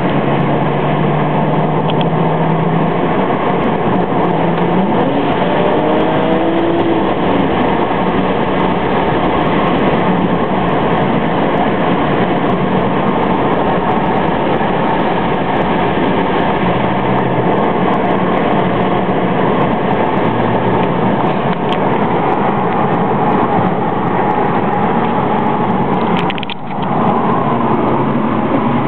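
Interior noise of a BMW 335i's twin-turbo 3.0-litre straight-six under way: a steady rush of road and wind noise over the engine's drone, heard inside the car's cabin. About five seconds in, the engine note rises as the car accelerates.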